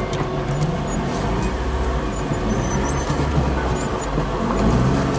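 Toyota car's engine idling, heard inside the cabin as a steady low hum.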